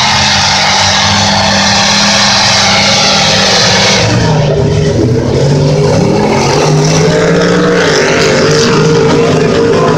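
Lifted mud trucks' diesel engines running hard at high revs as they churn through the deep mud hole, with steady hiss from the spray. About four seconds in the sound changes and the engine note wavers up and down as it revs.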